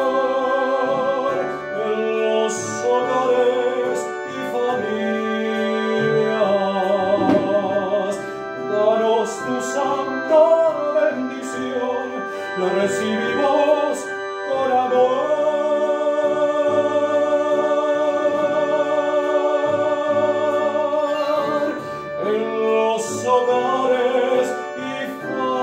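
A man singing a slow song in Spanish with a wide vibrato on held notes, accompanied by sustained chords on an electronic keyboard.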